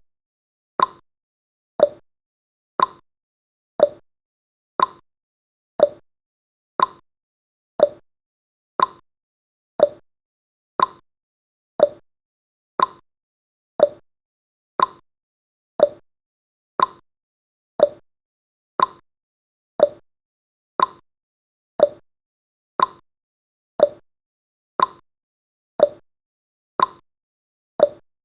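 Clock-tick sound effect of a countdown timer: a short, sharp tick once every second, evenly spaced.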